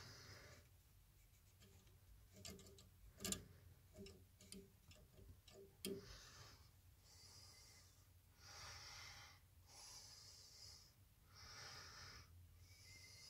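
Faint, irregular ticking from an ASUS ROG graphics card fan catching on something as it turns: several ticks between about two and six seconds in. After that comes soft breathing close to the microphone.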